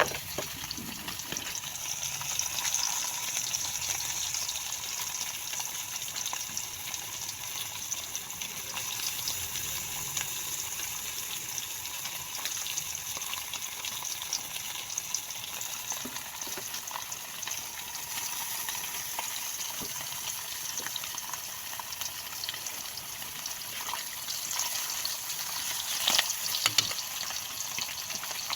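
Pompano frying in hot oil, a steady sizzle with fine crackling throughout, and a couple of louder knocks near the end.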